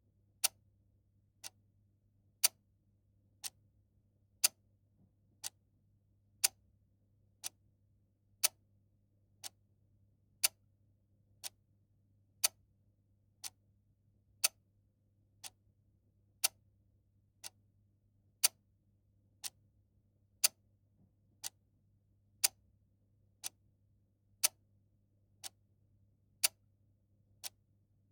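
Clock ticking steadily about once a second, the ticks alternating louder and softer in a tick-tock pattern, over a faint low steady hum.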